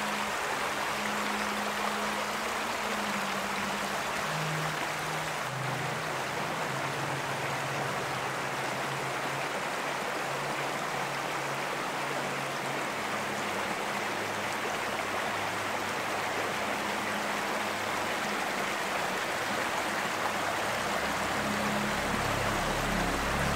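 Shallow rocky brook running over stones: a steady, even rush of water. Soft background music with low held notes lies underneath.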